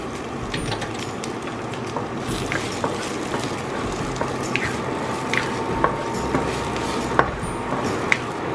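Sliced onion sizzling in a nonstick frying pan as a wooden spatula stirs it, with sharp knocks from the spatula against the pan now and then.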